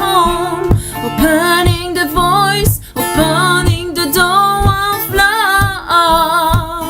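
A woman singing with a wavering vibrato over a strummed acoustic guitar.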